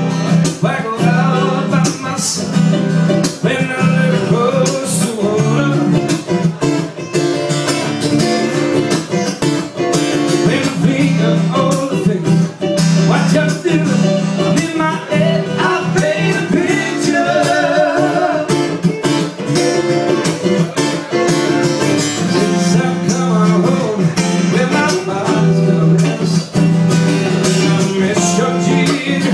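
Live acoustic-guitar duo: a man sings over a strummed acoustic guitar, backed by a second guitar.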